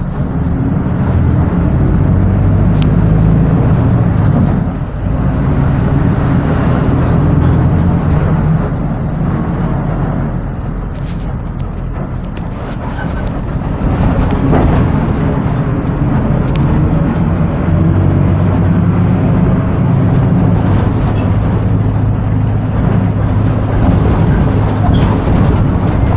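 Volksbus/MAN 17-230 OD city bus with Marcopolo Torino body running in service: a low engine drone with road noise, easing off about ten seconds in and building again a few seconds later, with occasional knocks and rattles.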